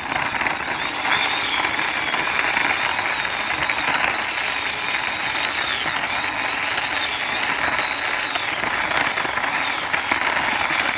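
Plastic wheels of a toy double-decker bus rolling over a rough concrete wall top as it is pushed slowly by hand: a steady, gritty rattle.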